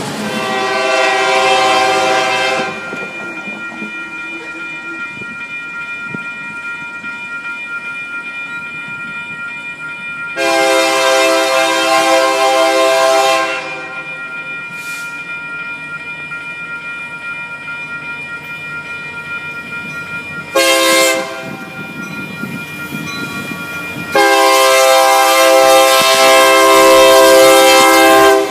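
Union Pacific diesel locomotive's multi-note air horn sounding long, long, short, long, the grade-crossing signal. The last long blast is the loudest, as the lead locomotives pass close by. A steady rumble of the moving train runs between the blasts.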